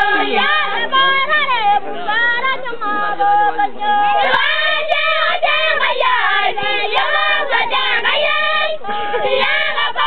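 Maasai women singing a welcome song together, several voices overlapping with pitches gliding up and down.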